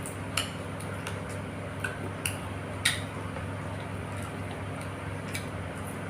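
Cutlery clinking against a plate or bowl while eating: about five short, sharp clinks, the loudest about three seconds in, over a steady low hum.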